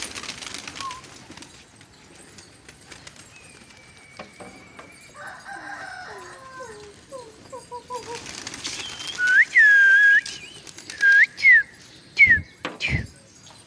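A flock of pigeons flapping their wings as they take off at the start, then, from about nine seconds in, loud shrill whistling in many short swooping notes, with two sharp knocks a little after twelve seconds.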